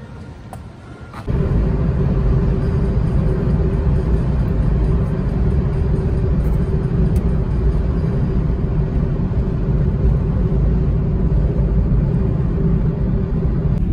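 Steady low rumble of a car driving along a road, heard from inside the cabin; it starts suddenly about a second in, after a quieter stretch of hall ambience.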